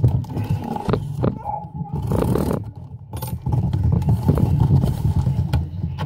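Cardboard shipping box being handled and turned over on a wooden counter: irregular scrapes and rubs of cardboard against the wood, about a second apart, over a low rumble.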